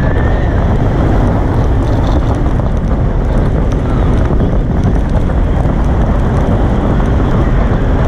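Loud, steady wind rush over an onboard camera's microphone as the Incredicoaster's steel roller coaster train speeds along its track, with the low rumble of the train running on the rails beneath it.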